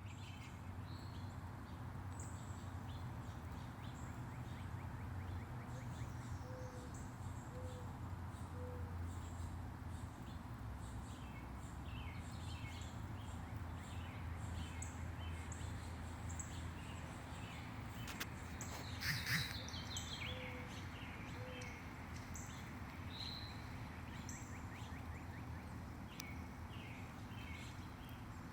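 Small songbirds chirping, many short high calls scattered throughout, over a steady low background hum. A few soft low notes come in a slow row about 7 s in and again about 21 s in, and a brief louder noisy sound comes about 19 s in.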